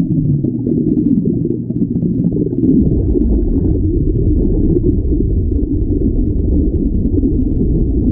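Muffled rushing and bubbling of churned water recorded underwater, with no clear sounds above a low, dull range; the deep rumble grows heavier about three seconds in as clouds of bubbles sweep past.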